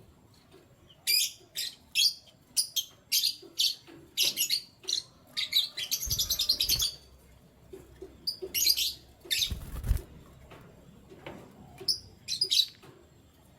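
Canaries chirping in short, irregular bursts of high notes, with a quick rapid trill about six seconds in. There is a brief rustle about ten seconds in.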